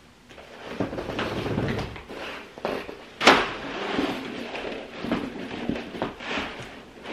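Window blinds being opened out of sight: a run of rustling and clattering, with one sharp clack about three seconds in that is the loudest sound.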